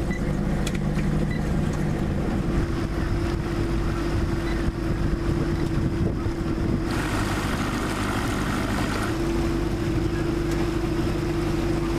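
Small boat's outboard motor running steadily under way, with wind on the microphone and water rushing past. The sound brightens about seven seconds in.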